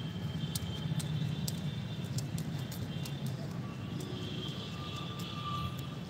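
Outdoor ambience: a steady low rumble, with bird chirping that comes and goes and a scattering of small sharp clicks.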